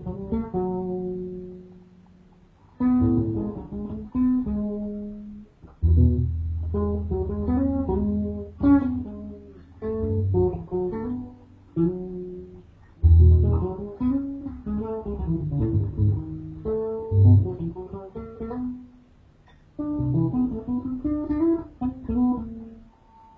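Solo bass guitar played fingerstyle: melodic phrases mixing low notes with chords and high notes, some notes sliding in pitch, broken by short pauses.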